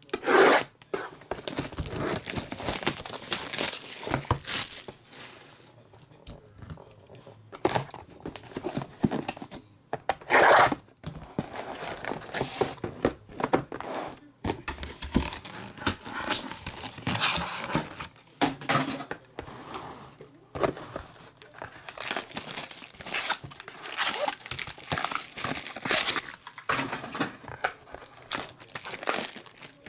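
Plastic shrink wrap on a trading-card hobby box slit with a box cutter and torn away, then crinkling and rustling as the cardboard box is opened and its mini-boxes and foil packs are handled. It comes in irregular bursts, with loud rips just after the start and about ten seconds in.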